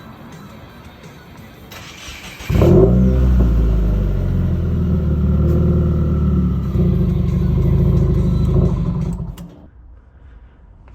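Subaru WRX's turbocharged boxer four-cylinder engine cranked by the starter and catching, then running for about seven seconds before the sound cuts off suddenly.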